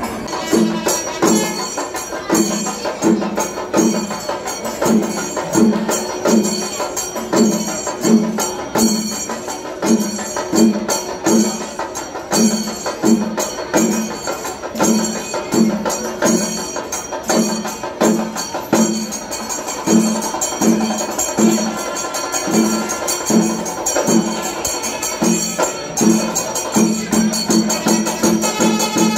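Rhythmic percussion music: steady drum beats about two a second under a jingling, cymbal-like clatter.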